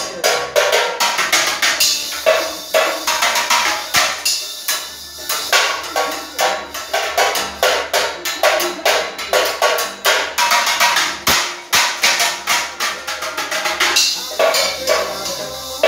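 Drumsticks playing a fast, busy beat on a homemade tin-can drum kit, with cymbals improvised from a strainer and a plate; sharp, closely spaced hits keep up throughout.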